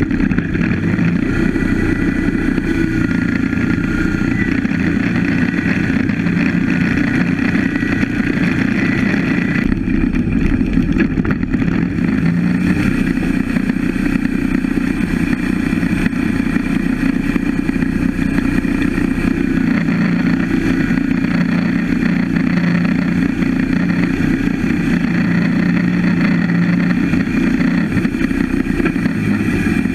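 Wood-Mizer LT15 Go portable band sawmill running steadily, its engine-driven band blade sawing through a pine log.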